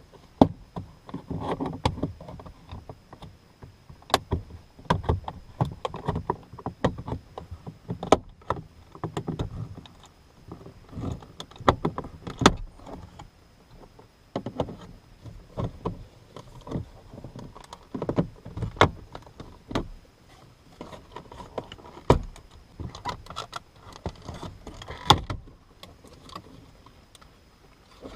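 Plastic door trim around a car's master power window switch being pried loose with a plastic trim removal tool: irregular sharp clicks and snaps of plastic clips and panel, with rustling and rubbing of plastic between them.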